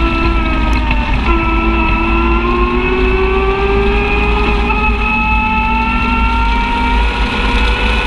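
Side-by-side UTV engine running under steady throttle, its pitch dipping about a second in and then climbing slowly as the machine gathers speed, with a steady low rumble underneath.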